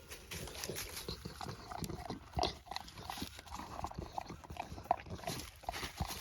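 A dog licking and lapping whipped cream from a cup: quick, irregular wet licks and smacks, several a second.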